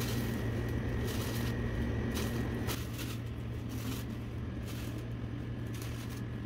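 Thin plastic bags rustling and crinkling irregularly as handfuls of raw meat are pushed into them, over a steady low hum.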